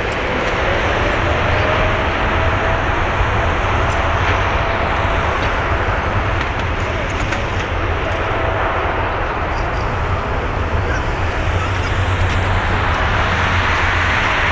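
Boeing 777-300ER's GE90-115B jet engines running, a steady roar with a faint whine that rises slightly in pitch over the first few seconds.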